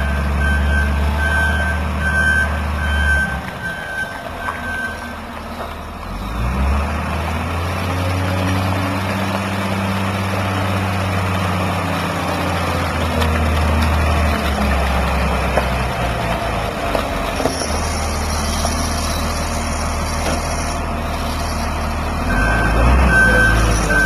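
Wheel loader's diesel engine running and revving up and down as it carries a large boulder on its forks. A reversing alarm beeps steadily, a little over once a second, for the first few seconds and again near the end.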